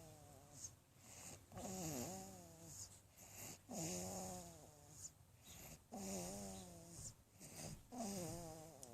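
A baby snoring: a pitched, nasal snore on each breath, about every two seconds, four times in all.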